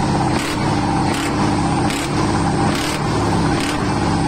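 Heavy truck's diesel engine revved hard and held high for a sound-level measurement, loud and steady with a regular pulse about every two-thirds of a second.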